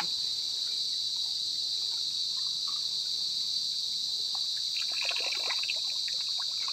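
Steady, high-pitched chorus of insects. About five seconds in, a brief cluster of soft clicks and crackles.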